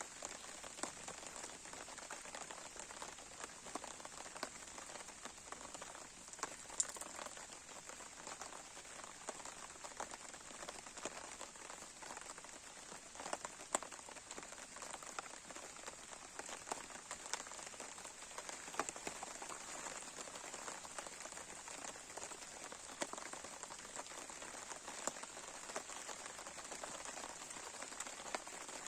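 Campfire burning, the wood crackling in a dense, irregular patter, with a few louder sharp pops.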